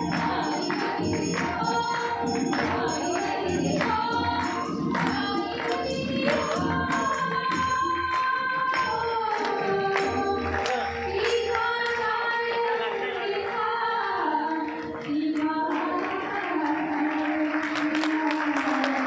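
A woman singing with harmonium and tabla accompaniment, the melody held over a steady drone with rhythmic drum strokes. Audience clapping begins near the end as the piece finishes.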